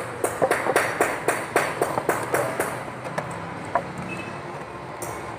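Rapid hammer strikes with a ringing, metallic tone, several a second, thinning out after about two and a half seconds to a few scattered knocks.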